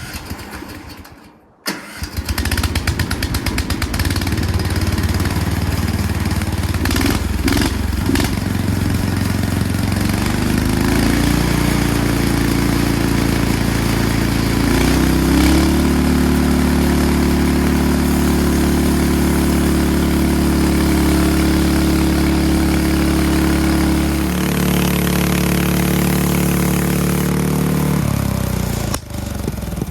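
Gasoline engine of a portable band sawmill running at steady high speed as the blade cuts through a log, its pitch shifting slightly a few times with the load. It comes in abruptly about two seconds in, after a short sound and a brief gap.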